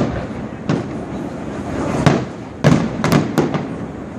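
Aerial fireworks bursting: about six sharp bangs, one near the start and the rest in a quick run in the second half, over the steady din of the display.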